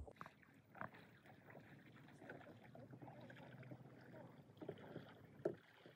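Faint sounds of a canoe being paddled on calm water, with a few soft knocks, the sharpest about five and a half seconds in.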